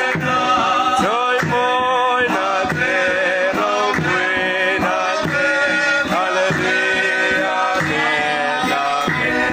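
Voices singing a Mizo spiritual song (thlarau lam hla), a woman's voice leading with a man's voice joining, over a strummed acoustic guitar and steady hand-clapping about twice a second.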